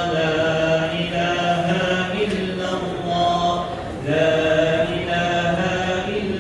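Arabic devotional chanting in long, held melodic phrases, each phrase breaking off briefly about a second, two seconds and four seconds in.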